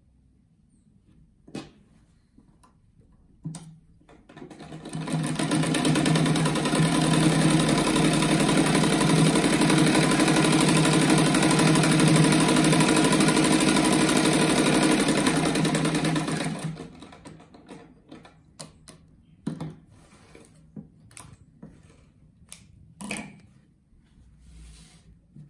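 Sewing machine running steadily, stitching a strip of fabric onto a patchwork block. It starts a few seconds in, runs for about twelve seconds and stops, with a few light clicks from handling the fabric before and after.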